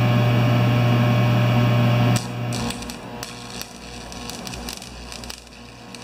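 A loud steady hum for about two seconds that cuts off suddenly, then the irregular crackle and pop of a stick-welding arc as a rod lays tack welds on a snowblower's broken transmission housing.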